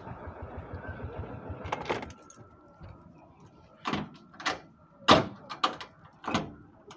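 A bajaj's small engine running with a fast, even beat, then cutting out about two seconds in. A string of sharp knocks and clacks follows as the three-wheeler's metal door panel and fittings are handled.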